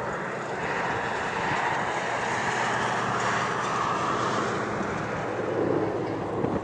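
Four F/A-18 Hornet jets flying over in close formation, their engines making a steady, loud rushing noise. The strongest part of the sound drops lower in pitch over the last couple of seconds as they pass.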